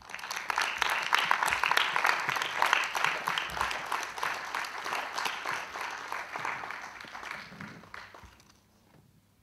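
Audience applause that starts suddenly, is loudest in the first few seconds, then gradually dies away after about eight seconds.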